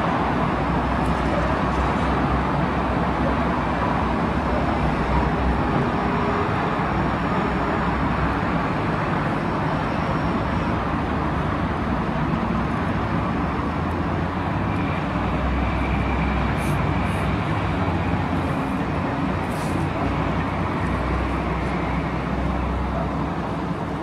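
Steady, even rumble of outdoor traffic and construction-site machinery, with a few faint high clicks about two-thirds of the way through.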